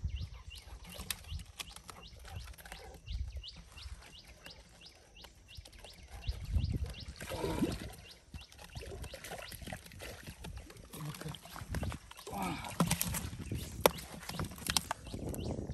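A plastic-bottle fish trap is handled at the water's edge, with splashing, rustling and a caught fish flapping against the plastic and the wet mud. There are sharp knocks, the loudest near the end, and a fast, even ticking in the background during the first half.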